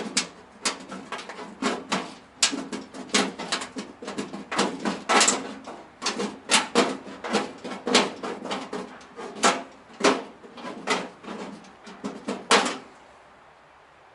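Rapid, irregular sharp knocking and clattering, two or three knocks a second, which stops near the end.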